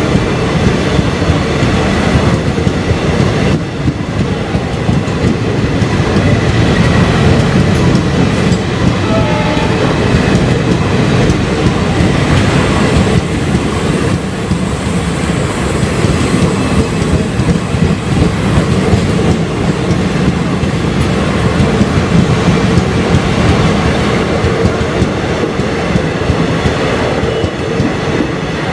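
Long passenger train's coaches rolling past at close range: a steady loud rumble with the wheels clattering over the rail joints.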